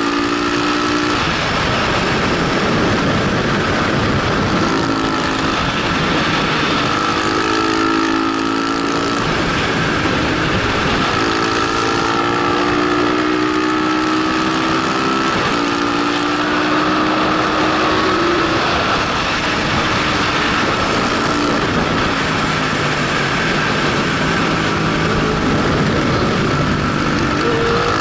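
A KTM motorcycle's engine, heard from on board at speed, pulling through the gears. Its pitch climbs in long stretches and drops back at each shift, under a constant rush of wind on the microphone.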